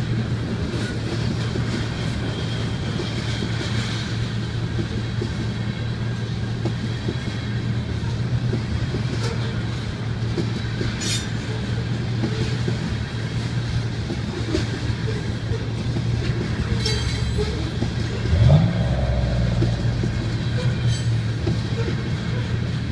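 Freight train of covered hopper cars rolling past steadily: a continuous low rumble of steel wheels on rail with occasional sharp clicks. About three-quarters of the way through comes a brief, louder rising sound.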